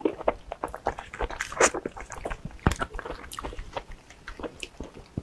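Close-miked chewing of soft durian flesh: irregular wet smacks and clicks of the mouth, then the rustle of plastic gloves as hands dig into the durian husk near the end.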